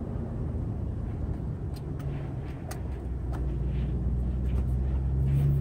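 Vehicle engine and tyres on a dirt road, heard from inside the cabin: a steady low drone whose pitch and level rise a little from about three seconds in, with a few light ticks.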